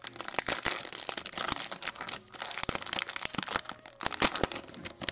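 Plastic cello-pack wrapper of trading cards being torn open and pulled apart by hand: continuous crinkling and crackling of the wrapper.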